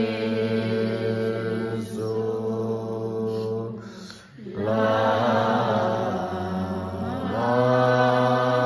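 A group of devotees chanting a Tibetan Buddhist supplication prayer to the root lama in unison, on long held tones. The chanting breaks off briefly about four seconds in, then starts up again.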